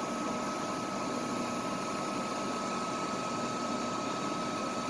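Milling machine running steadily: an even hum and hiss with a constant high whine.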